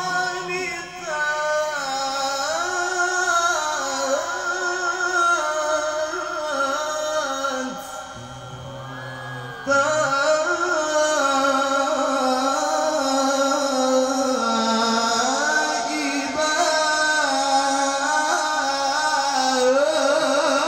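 Male Qur'an reciter chanting in the melodic tilawah style into a microphone, long held notes that bend and waver in ornaments. There is a brief pause about eight seconds in, after which the voice comes back louder.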